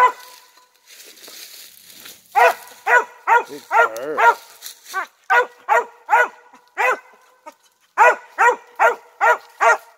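Hunting dog barking in quick chop barks, about two a second, in two runs with a short break about three quarters of the way through; one bark near the middle draws out and wavers. She is barking on game she has tracked in, at the spot where the quarry went.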